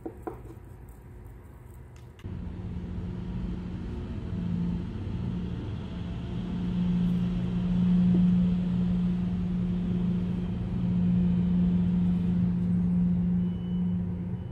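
A steady low mechanical rumble with a humming tone, like an engine running, that starts suddenly about two seconds in and swells slightly in the middle. A couple of light clicks come right at the start.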